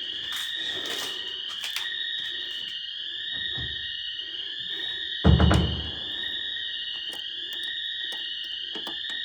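Store intruder alarm siren sounding continuously: a high-pitched electronic tone that sweeps upward in pitch and repeats about once a second. A loud thump about five seconds in.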